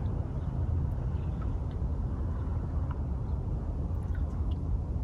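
Steady low outdoor rumble, with a few faint short high chirps over it.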